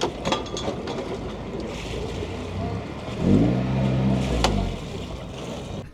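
Wind on the microphone and a sailboat's inboard diesel engine being manoeuvred while docking: about three seconds in it is briefly revved for a second or so, then eases off. A few light knocks sound over it.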